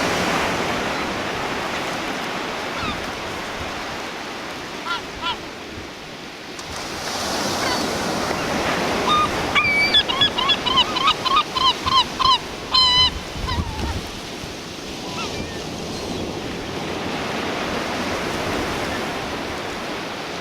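Surf washing steadily on the shore, with a seagull calling over it: two short calls about five seconds in, then a rapid run of about ten yelping calls around the middle.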